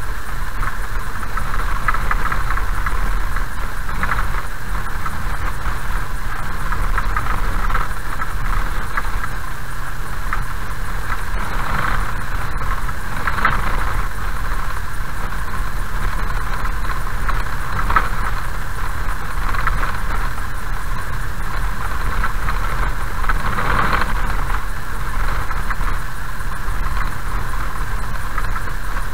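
A car driving slowly on a gravel road, heard from inside the cabin: a steady low rumble of engine and tyres with gravel road noise, swelling briefly a few times.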